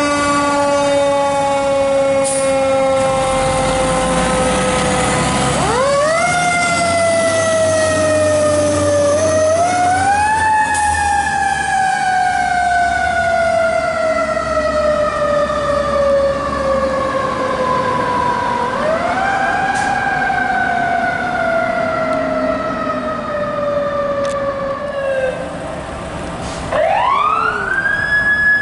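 A 2003 Seagrave Marauder fire engine's mechanical siren, wound up again and again, each time coasting slowly down in pitch over several seconds, over the rumble of the truck's engine pulling away. Near the end a second, higher siren rises and holds.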